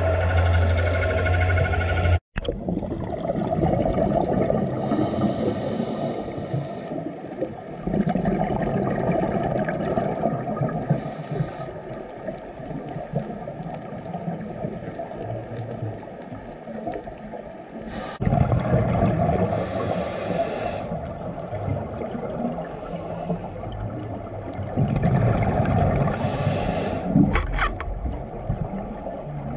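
Underwater scuba breathing through a regulator, picked up by the camera: hissing inhalations every few seconds and gurgling, rumbling exhaled bubbles between them. A steady low drone at the start cuts off abruptly about two seconds in.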